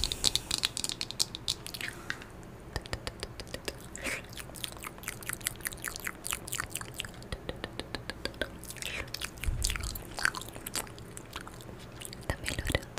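ASMR mouth sounds made right at the microphone: quick, irregular wet clicks and smacks, like chewing and biting.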